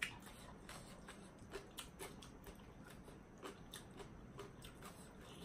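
A person chewing a mouthful of spicy papaya salad: faint, irregular wet clicks and soft crunches, a few a second, with a slightly louder one at the start.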